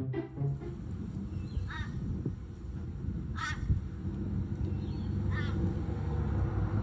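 A crow calling outdoors: three short, harsh caws spaced about 1.7 seconds apart, over a steady low background rumble.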